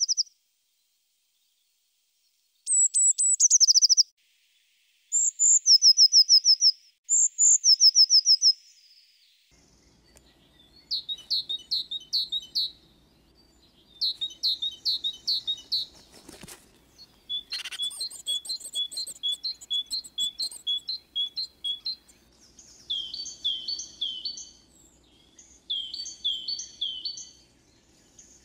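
Songbirds singing: short high trilled phrases that fall in pitch, then, from about ten seconds in, a bird repeating clear short notes in quick groups.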